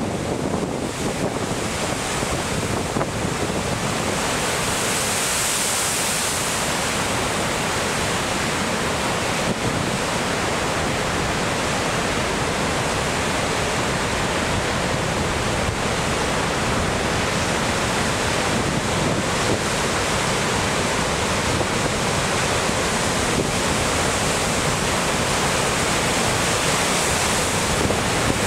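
Heavy storm surf breaking against rocky cliffs: a dense, steady wash of wave noise with no single crash standing out. Strong wind buffets the microphone.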